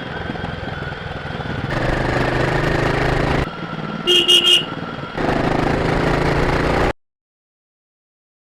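Royal Enfield Guerrilla 450's 452 cc single-cylinder engine running through its stock exhaust, pulling harder about two seconds in, easing off, then picking up again. A horn gives three short beeps about four seconds in, and the sound cuts off suddenly about seven seconds in.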